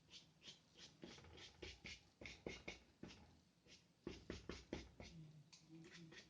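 Paintbrush working gouache onto paper in quick short strokes: a faint series of soft scratchy taps, about three or four a second, with a louder cluster a little after the middle.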